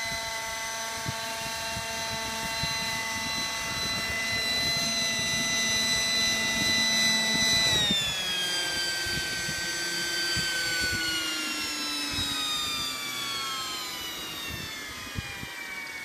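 Radio-controlled scale Gazelle helicopter with a fenestron tail fan. Its electric motors and rotors whine at a steady pitch while it hovers low and sets down. About eight seconds in the motors spool down, and the whine falls slowly in pitch as the rotor winds down.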